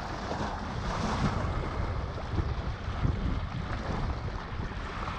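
Strong wind buffeting the action camera's microphone: a steady, rumbling noise that swells and eases with the gusts.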